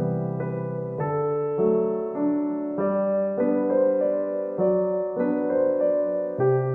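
Background music: a gentle piano or electric-piano piece, with notes and chords changing about every half second over a sustained bass line.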